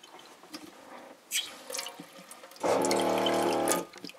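Water dripping and splashing in a stainless steel sink. About two and a half seconds in, the boat's on-demand freshwater pump hums steadily for about a second as the tap runs, then cuts off when the tap is closed.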